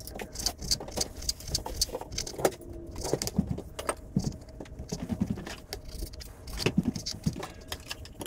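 Chef's knife chopping thawed fish fillets into small cubes on a plastic cutting board: irregular taps of the blade against the board.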